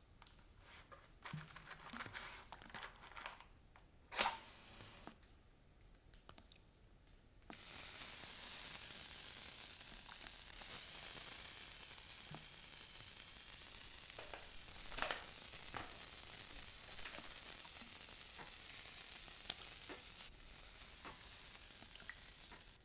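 Soft scraping and clicking foley with one sharp knock about four seconds in, then a steady crackling hiss that starts suddenly a few seconds later and keeps going, with scattered clicks through it.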